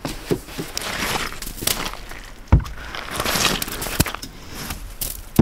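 A snow brush pushing and scraping heavy, rain-hardened wet snow off a car's windshield and hood, with clumps of snow dropping onto the ground. A sharp knock about two and a half seconds in, with smaller knocks later.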